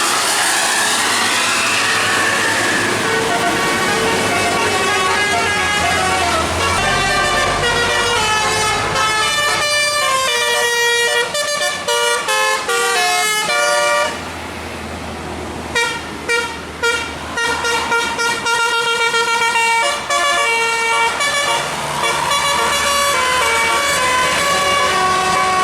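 Bus telolet horn, a set of musical air-horn trumpets, sounding: at first gliding siren-like sweeps, then from about seven seconds a fast melody of stepped notes. A low drone runs underneath at times.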